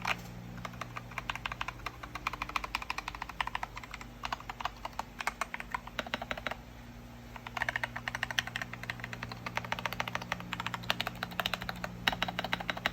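Typing on a Kemove Snowfox DK61 60% mechanical keyboard fitted with lubed and filmed Feker Holy Panda tactile switches on a brass plate, with foam and tape mod in its plastic case: fast runs of keystrokes, with a short pause about seven seconds in.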